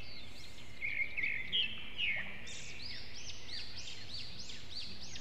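Several birds chirping and calling over steady rural background noise. The chirps are loudest about one to two seconds in, then settle into a quick run of short chirps, about three a second.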